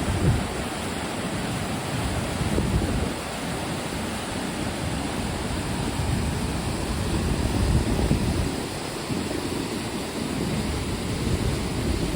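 Waterfall rushing steadily: a loud, even roar of falling water, with uneven low rumbling from wind buffeting the microphone.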